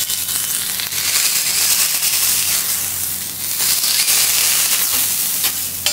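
Shrimp heads sizzling loudly in oil on a steel teppanyaki griddle as a metal spatula presses them flat to crisp them. A sharp click comes at the start and another near the end.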